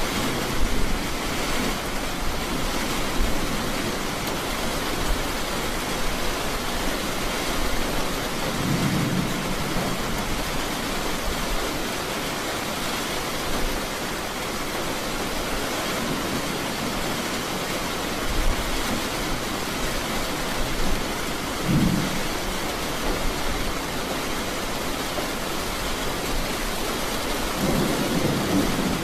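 Steady rain falling, with low rolls of thunder about nine seconds in, again around twenty-two seconds, and a longer one swelling near the end.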